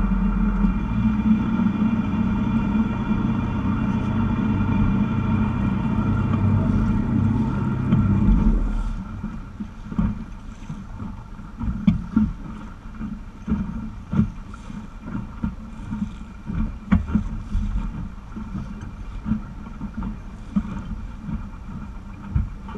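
Sailing yacht's inboard diesel engine running steadily as the boat motors away from the quay. About eight seconds in the loud drone drops away, leaving a quieter background with scattered knocks and clicks.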